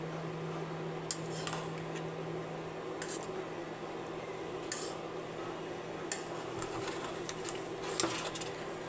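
Kitchen utensils clinking against pots and dishes in a few short, sharp knocks spread over several seconds, over a steady low hum.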